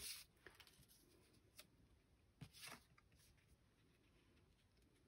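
Near silence, broken by faint, brief rustles and light ticks of paper being handled: one at the start and another about two and a half seconds in.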